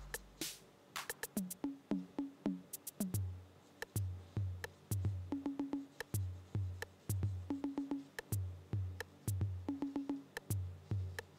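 Background electronic music with a drum-machine beat of sharp clicks. A low bass line comes in about three seconds in, with a short repeated melodic figure about every two seconds.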